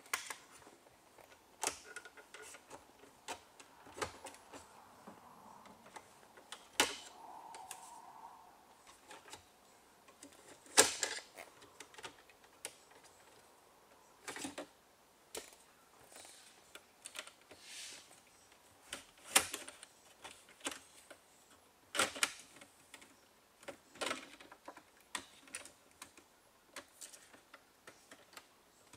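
Irregular plastic clicks and snaps as the 2001 Citroën Xsara's dashboard trim is prised off with a plastic pry tool, with a few sharper snaps as the trim clips pop loose.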